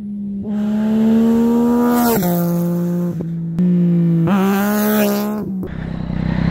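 Yamaha XSR900 motorcycle with a full titanium Spark Grid-O exhaust, its inline three-cylinder engine revving high as the bike accelerates by. The pitch climbs, drops sharply about two seconds in, and jumps back up twice before falling away. Near the end it turns to a rougher, lower running sound.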